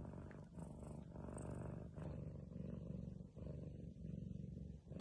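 Domestic cat purring, a faint low rumble that breaks briefly about every three-quarters of a second with each breath.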